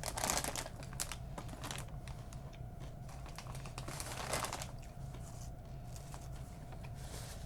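Crunching on caramel-and-chocolate candy popcorn, in a few separate crackly bursts of chewing.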